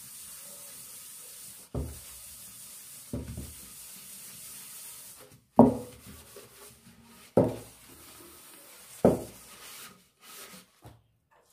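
Sponge scouring an aluminium pan with homemade soap: a steady rubbing, with about five sharper, louder strokes, the strongest in the second half.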